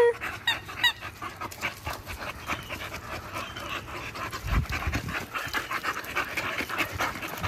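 American bully dog panting quickly and steadily, hot from playing ball in the heat. A few short high squeaks sound about half a second in, and a low thud comes about halfway through.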